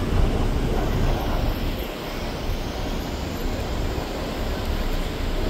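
Steady rumbling road and engine noise of a moving vehicle, with no distinct events.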